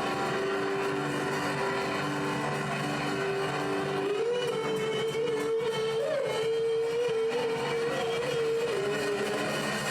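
Live worship music: sustained chords under a strong held melody note that steps up about four seconds in and wavers.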